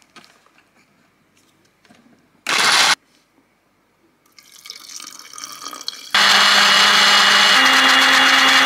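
Philips PowerChop 800 W blender chopping onion, garlic, ginger and candlenuts into a paste. It gives one short pulse about two and a half seconds in, then from about six seconds runs loud and steady, its motor hum stepping up in pitch about a second and a half later.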